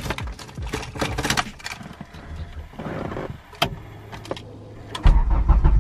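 Key and ignition clicks and rattles, then about five seconds in the turbocharged Acura Integra's built B18C1 engine fires and starts running with a sudden loud rumble. It is starting on a borrowed test ECU after refusing to start, the sign that the car's own ECU is at fault.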